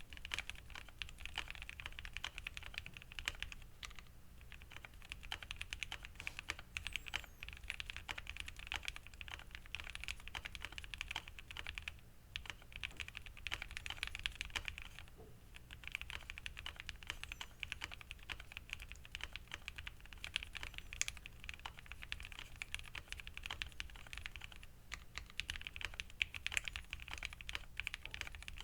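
Fast continuous typing on a Keychron Q1 mechanical keyboard fitted with lubed Cannonkeys Lavender linear switches, a POM plate, Poron plate and PCB foam, Durock V2 stabilizers and PBT keycaps: a steady stream of soft, muted keystroke clacks with brief pauses now and then.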